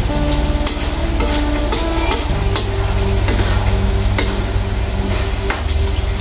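A metal ladle scraping and knocking against a black wok as duck pieces in soy sauce are stirred, the sauce sizzling. Sape music plays softly underneath.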